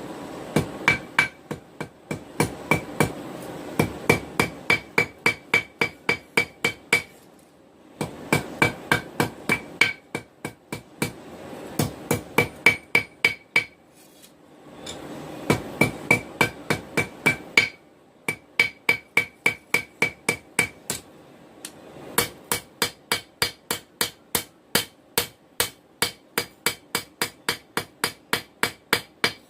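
Hand hammer forging hot steel on an anvil: runs of quick blows about three a second, each with a short metallic ring, broken by brief pauses. A steady rushing noise sits under some of the runs.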